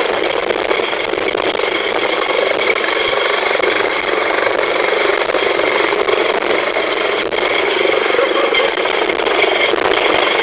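Helicopter running close by: a loud, steady rush of turbine and rotor noise with a high whine running through it.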